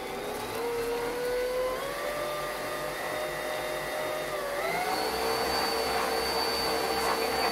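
Electric stand mixer running, its motor whining steadily as it mixes cookie dough. The pitch creeps up slightly, then dips and steps higher about two-thirds of the way through before holding steady.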